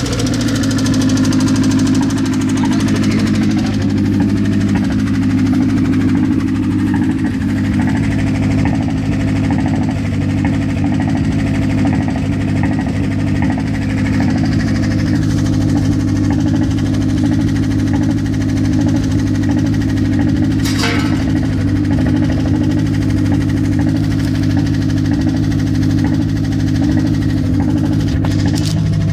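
Mazda car engine idling steadily, with the strange noise that appeared after the car stood unused for a while. A single short click about two-thirds of the way in.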